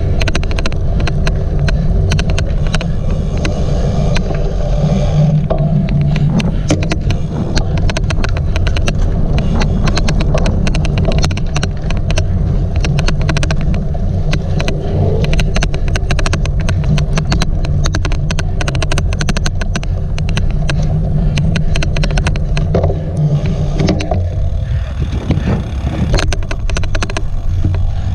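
Cyclocross bike being ridden: a loud low rumble of wind and knobby tyres over rough ground, with a dense, irregular odd clicking running through it.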